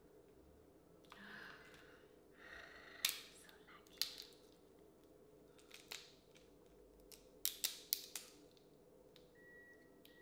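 Boiled crawfish shells cracking and snapping as they are peeled apart by hand: a handful of sharp cracks spread through, between softer rustling of shell.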